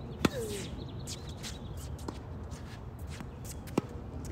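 Tennis balls struck by rackets in a doubles rally on a hard court: two sharp racket hits, one just after the start and one near the end, with a fainter hit or bounce between them. A short shoe squeak follows the first hit, over light shuffling footsteps.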